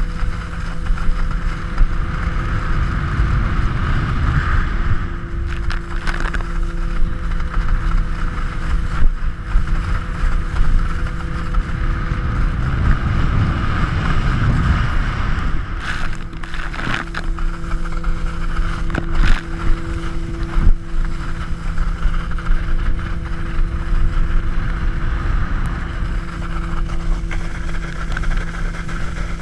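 Connelly slalom water ski running across the lake behind a tow boat. There is a steady rush of water spray and wind buffeting the camera, under the steady low drone of the tow boat's engine. A few sharp knocks come about halfway through and again later.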